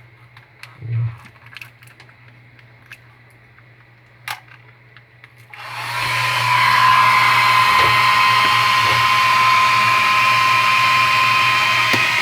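A few light handling clicks, then about halfway through a handheld hair dryer switches on and blows steadily with a high whine. It is being used to defrost ice built up around a refrigerator's evaporator fan.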